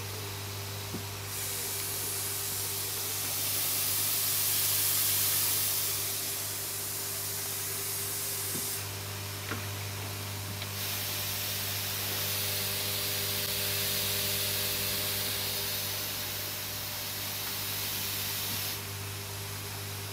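Air hissing through a pond filter's airline valves and diffusers over the steady hum of the air pump. The hiss swells as the valve taps are opened, drops away about nine seconds in, then swells again about two seconds later before easing near the end.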